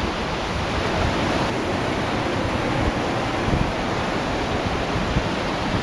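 Wind blowing across the camera microphone: a steady rushing noise with irregular low buffeting gusts.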